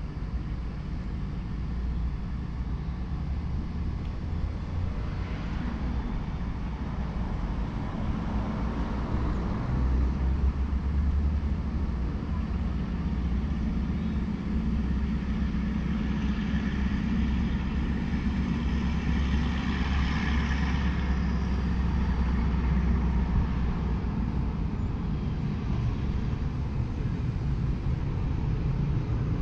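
Low, steady rumble of distant motor vehicles, swelling a little about halfway through.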